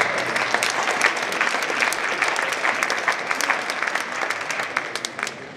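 An indoor hall audience applauding with dense clapping that tails off near the end.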